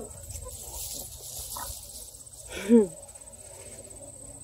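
Redbone coonhound puppy giving one short whining yelp about two-thirds of the way through, its pitch rising then falling. A steady high insect trill runs underneath.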